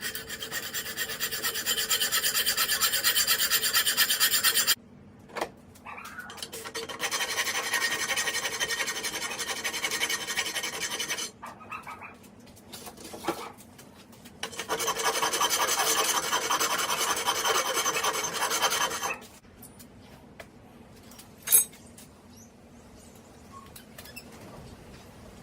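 Hand finishing of a forged steel hinge: a rapid scratchy rasping in three long bouts with short pauses between, as of filing or wire-brushing the metal. Quieter handling follows, with one sharp click near the end.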